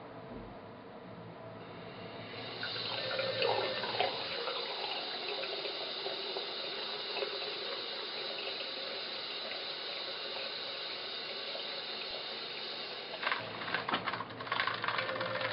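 Cross-head bathroom tap turned on, water running steadily into the basin from about two and a half seconds in. Near the end, a run of irregular clicks and rattles sounds over the running water.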